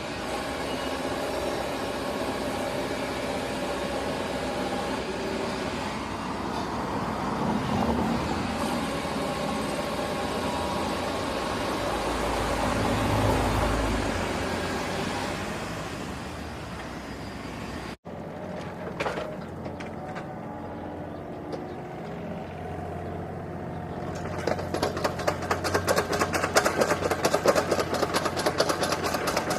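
Two mechanical sound effects in a row. The first is a steady vehicle-like noise that swells twice, with a low rumble at the second swell. It cuts off abruptly, and a steady low machine hum follows, joined about 24 s in by a fast, even clatter.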